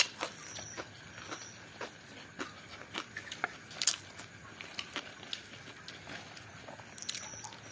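A metal spoon clicks and scrapes against a plate, and the paper food wrapper crinkles during eating. The clicks are small and irregular, a few a second.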